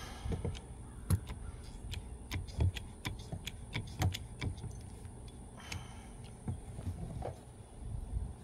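Hydraulic lug crimping press being worked to crimp a sleeve onto a cable: a run of irregular clicks and light metallic knocks, a few stronger knocks among them.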